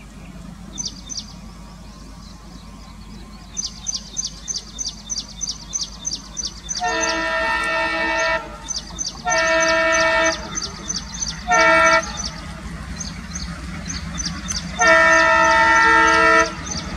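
Twin WDM3A Alco diesel locomotives hauling an express, their engines a steady low rumble, sounding a multi-tone horn in four blasts: two of about a second and a half, a short one, then a last long one near the end. A rapid run of high chirps, about three a second, sounds between the blasts.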